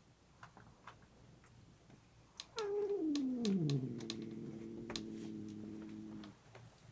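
A cat's long, low growl at a food bowl, a standoff over food. It starts about two and a half seconds in, slides down in pitch, then holds a steady low tone for about three seconds before stopping. Short sharp clicks of a cat crunching dry kibble come and go around it.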